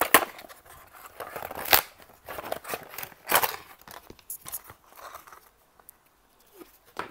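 Packaging being handled and pulled open: irregular rustling, crackling and sharp snaps, with a few louder snaps in the first half and a short lull near the end.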